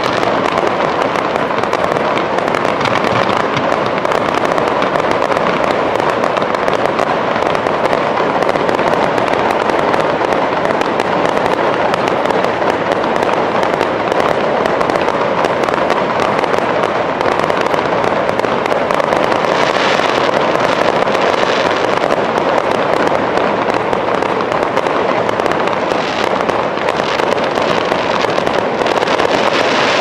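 Fireworks display: a dense, continuous crackle and rumble of aerial shells bursting over a burning pyrotechnic waterfall. Sharper, brighter crackling comes through about twenty seconds in and again near the end.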